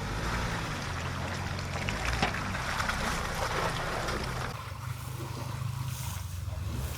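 Off-road vehicle engine running low and steady, with water splashing and trickling around it that thins out about four and a half seconds in.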